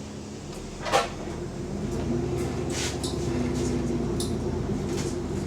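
Single-decker or double-decker bus doors shutting with a brief sharp clunk about a second in, then the bus's diesel engine pulling away, its drone building over the next second and running on steadily.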